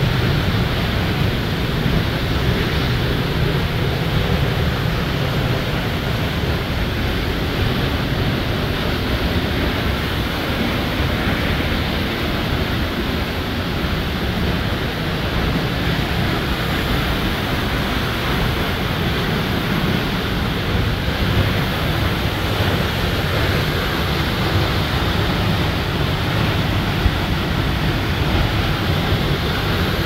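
Steady rushing of a waterfall's falling water, heard close by from beneath the rock overhang behind the falls.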